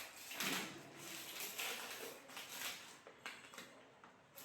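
Faint rustling and handling noises as a package from the fridge is opened to check what is inside.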